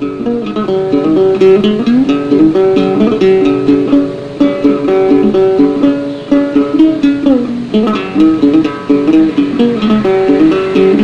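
Instrumental music led by a plucked string instrument playing a quick, busy melody, beginning at once and going on without a break.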